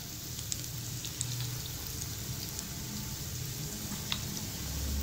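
Potato and gram-flour pakoras deep-frying in hot oil: a steady sizzle with scattered small pops and crackles.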